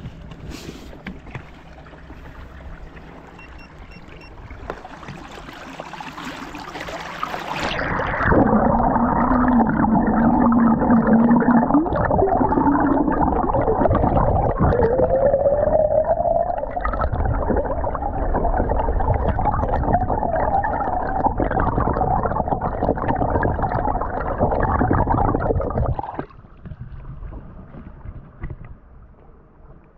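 Garmin Force Kraken brushless trolling motor running, heard underwater: a muffled hum with a steady low whine that glides upward in pitch partway through. It drops away sharply near the end. Before it, a rush of water noise builds for a few seconds.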